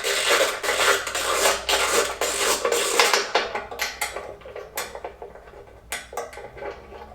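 13 mm socket wrench ratcheting quickly as bolts on the engine tinware are undone. After about three seconds the ratcheting stops, followed by separate sharp metal clicks and clinks of bolts and washers being handled.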